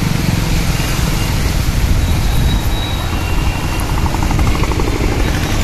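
Motor scooter riding through shallow floodwater: steady engine and water-spray noise over a heavy low rumble.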